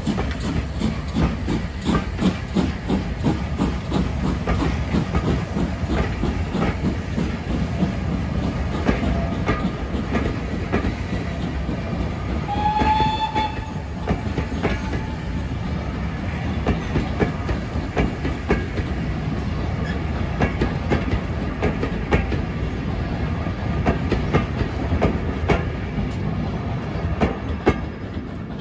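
Chocolate-and-cream passenger coaches rolling past at close range, their wheels clicking steadily over the rail joints. A short whistle-like tone sounds about halfway through.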